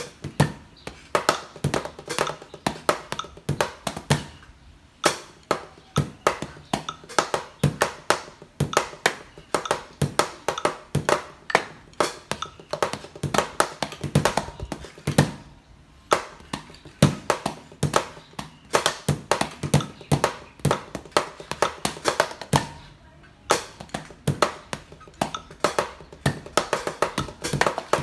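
Drumsticks tapping on a rubber practice pad and electronic drum pads, with a kick pedal beating on a mesh kick pad, in a steady slow drum groove of about three to four strokes a second. The playing stops briefly a few times.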